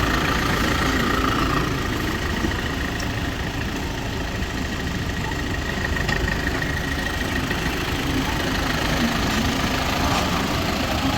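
Heavy vehicle engine running steadily at low speed. A faint thin high whine sits over it for the first several seconds.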